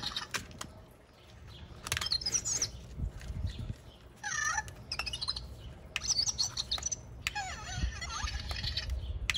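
Zhu Zhu Pets robotic hamster toy chirping and squeaking through its newly replaced speaker: a series of short electronic calls that rise and fall in pitch, over light clicking.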